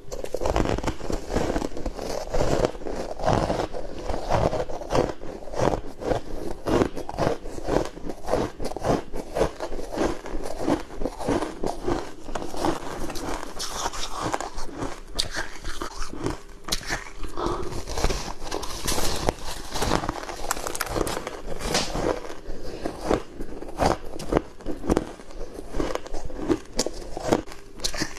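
Big bites of hard, crunchy packed ice being bitten and crushed between the teeth: a dense, unbroken run of sharp crackling crunches.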